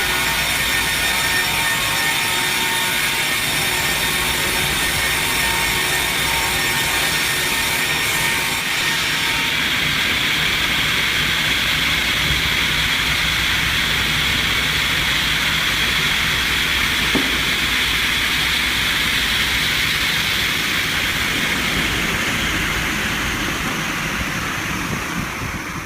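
Steady, loud machine noise with a change in character about nine seconds in, from a sound with many steady tones to a more even hiss.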